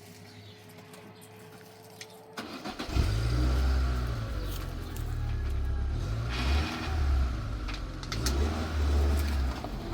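A car engine cranks and starts about two and a half seconds in, then keeps running with a loud, uneven low rumble.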